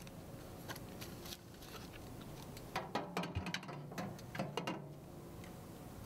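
Handling noise as a taped bundle of glass fluorescent tubes is lifted and set into a microwave oven's cavity: a quick cluster of light clicks and knocks about three to five seconds in.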